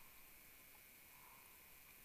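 Near silence underwater: a faint steady hiss with a few faint ticks.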